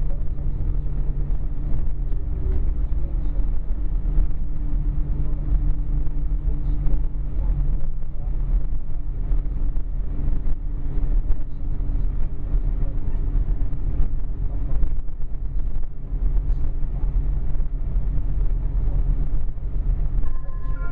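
Cabin of a Class 175 diesel multiple unit under way: the underfloor Cummins diesel engine drones steadily, mixed with wheel and track rumble. About eight seconds in, the engine note changes pitch.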